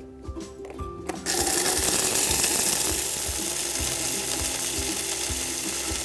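Immersion hand blender running in its chopper bowl, grinding roasted peanuts into crumbs: a loud, steady grinding that starts about a second in.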